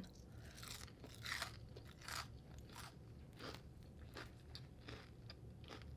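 Faint, close-up chewing of food in the mouth: a string of short, irregular chewing sounds, roughly one or two a second.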